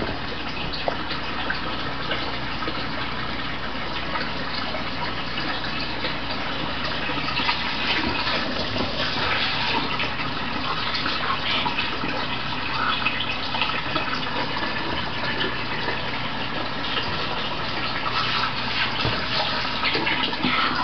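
Water pouring and splashing steadily as it floods and fills a doll house, with many small splashes in the running water.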